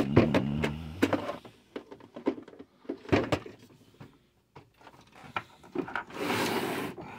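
Hard plastic playset pieces clicking, knocking and scraping together as a tree section is fitted onto a castle piece on a wooden table, with one sharp knock about three seconds in and a longer scrape lasting about a second near the end.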